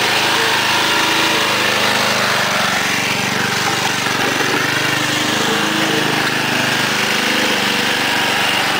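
John Deere Sabre lawn tractor's 11-horsepower Briggs & Stratton engine running steadily.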